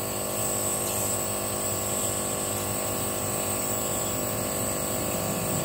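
Compressor nebulizer running with a steady electric hum, pumping air through the medication cup to mist it.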